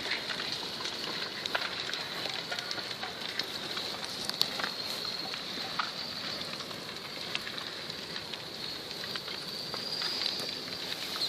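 Spoil-heap landslide on the move: loose earth and rock crackling and trickling, with frequent small cracks and clicks over a steady high-pitched hiss.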